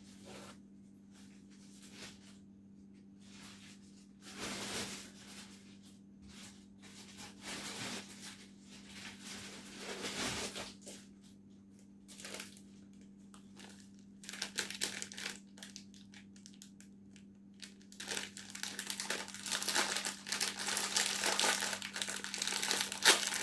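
Rustling and crinkling noises, scattered and short at first, then denser and louder through the last third, over a steady low hum.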